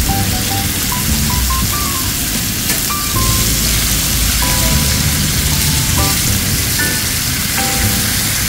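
Pork belly and green onions sizzling on a hot black griddle pan, under background music with a simple stepping melody and bass. The sizzle grows louder about three seconds in.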